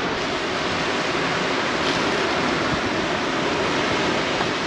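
Steady rushing noise of wind and surf, with no distinct events.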